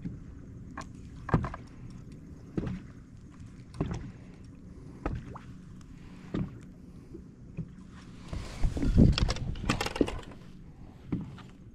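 Sounds of a fishing boat on the water: a low steady hum with sharp knocks about every second and a quarter, and a louder rush of noise from about eight seconds in that lasts a couple of seconds.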